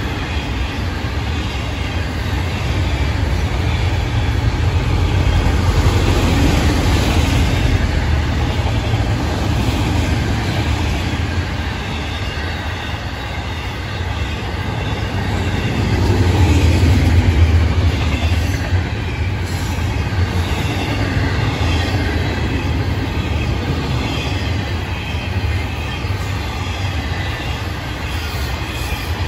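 Florida East Coast freight train's autorack and intermodal cars rolling past on the rails. A steady low rumble of wheels on track with a thin, high squeal from the wheels, swelling louder about halfway through.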